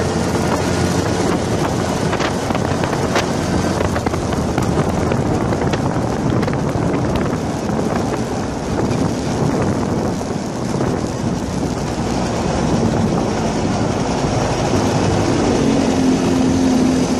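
Street go-kart's small engine running steadily under way, heard from the kart, with wind buffeting the microphone and road noise.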